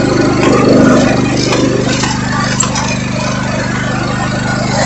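Riding lawn mower engine running at a steady speed, with a couple of brief knocks.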